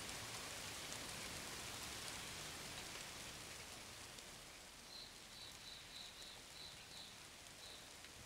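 Steady rain falling, slowly fading out. In its second half comes a run of short, high chirps.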